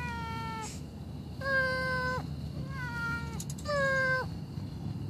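Domestic calico cat meowing four times, each call under a second long and dropping in pitch at its end.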